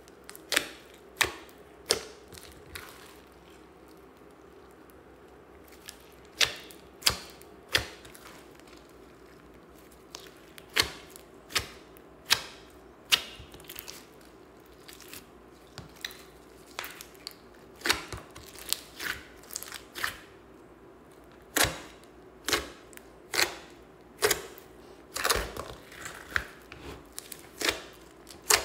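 Hands squishing and kneading a large mass of mixed slime, giving irregular sharp wet pops and clicks. There is a lull of a few seconds after the first handful, and a longer lull midway.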